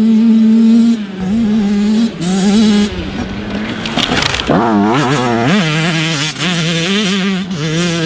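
A 2022 Yamaha YZ85's single-cylinder 85cc two-stroke engine being ridden hard at high revs. The throttle is chopped and reopened several times, so the revs fall and climb again. There is a brief rush of noise about four seconds in, then quick rises and falls in pitch.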